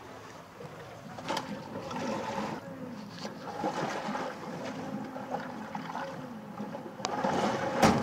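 Seawater rushing and sloshing along a sailing yacht's hull, heard from inside the cabin by a porthole. A few sharp knocks come through, the loudest near the end.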